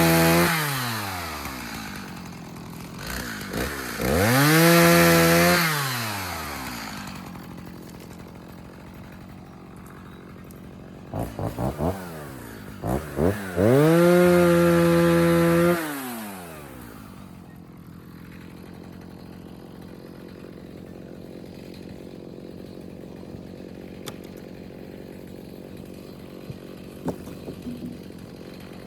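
Chainsaw engine revved up to full throttle and held for a second or two, then let back down, three times, with a few quick throttle blips before the third; after that it settles to a steady idle.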